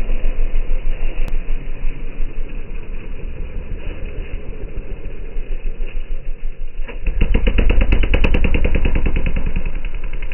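Honda CRF250R motocross bike's single-cylinder four-stroke engine running at low revs with an uneven, pulsing note, then opened up hard about seven seconds in, louder with rapid firing pulses, before the throttle eases off near the end.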